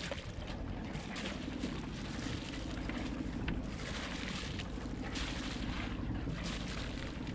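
Wind buffeting the microphone over the rush of sea water along a small sailboat's hull under way, with a steady low rumble and gusts swelling now and then.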